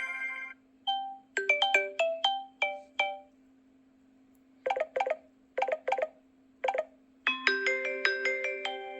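Samsung Galaxy S7 preloaded ringtones playing. One ends in the first half second. The next plays quick runs of short, struck, ringing melodic notes with a pause between them, then ends on a held chord that slowly fades. A faint steady hum runs underneath.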